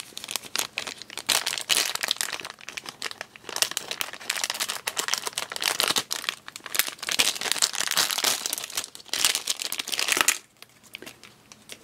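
Plastic blind-bag packet of a Thomas & Friends Minis toy crinkling and rustling as hands open it and pull it about. The crinkling stops about ten seconds in.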